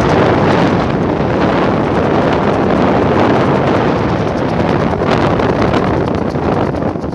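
Strong wind blowing hard across the microphone: a loud, steady rush and rumble with no let-up.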